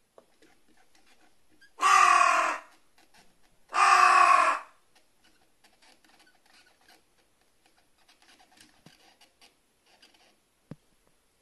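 Pet carrion crow giving two loud, harsh caws about two seconds apart, followed by faint rustling and ticking and one sharp click near the end.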